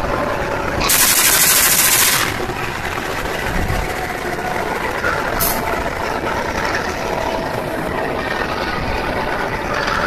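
Diesel-electric locomotive CC204-05 running steadily at a standstill, with a loud hiss of released compressed air about a second in that lasts about a second, and a second, brief hiss around five seconds in.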